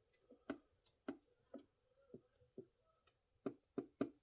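Light knocks and clicks of small engine parts being handled and set down into plastic containers: about nine short taps, with a quick run of three near the end.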